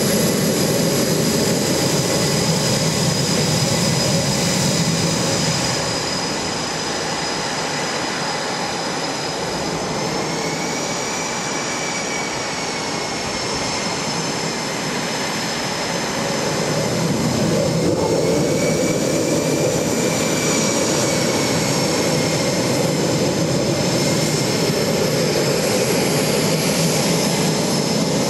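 Boeing EA-18G Growler's twin General Electric F414 turbofan engines at taxi power as the jet rolls and turns on the ramp: a steady jet roar with a high whine that wavers in pitch twice.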